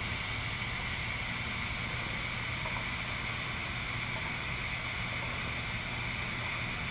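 TIG welding arc running steadily on a pipe joint during the hot pass at about 150–160 amps: an even hiss with a low electrical hum underneath.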